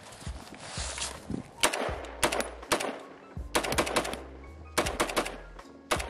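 FN SCAR 17S rifle in 7.62×51mm firing semi-automatically: a few single shots about half a second apart, then two quick strings of shots. Background music plays underneath.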